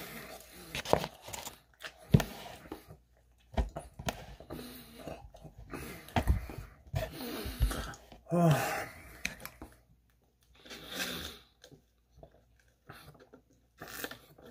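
A person eating fast food: chewing and mouth sounds, paper wrapper rustling, and a few short knocks on the table, in scattered bursts with pauses between.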